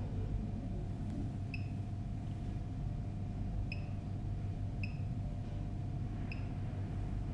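Four short high beeps, spaced one to two seconds apart, from an OBDEMOTO 3000Pro diagnostic tablet as its touchscreen options are tapped, over a steady low hum.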